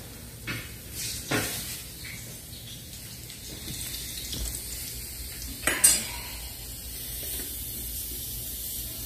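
Kitchen clatter: a few sharp clinks and knocks of metal utensils and dishes, the loudest about six seconds in, over a steady hiss of oil sizzling in a hot skillet.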